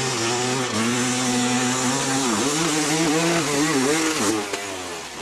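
Two-stroke dirt bike engine revving hard under load on a steep hill climb, its pitch wavering up and down as the rear wheel fights for grip, then dropping away near the end as the bike loses the climb.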